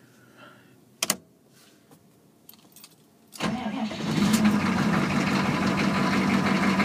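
A switch clicks about a second in; then a GM 6.2-litre diesel V8 fires on a cold start just past halfway and settles into a steady fast idle, its glow plugs just cycled and the cold advance on.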